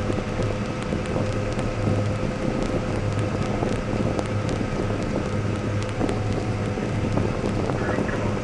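John Deere STS combine running steadily while harvesting corn: an even machine hum with scattered ticks and crackles.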